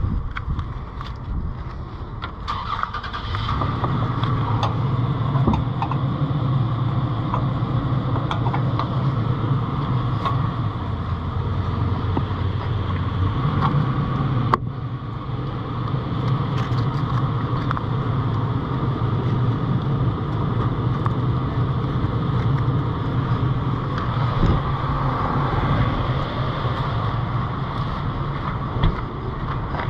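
A vehicle engine idling steadily, with a low even hum, and a brief break about halfway through.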